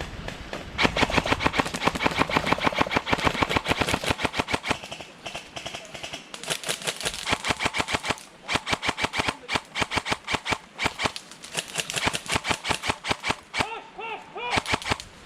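Airsoft guns firing in long strings of rapid shots, a fast rattle of sharp cracks, broken by a few brief pauses.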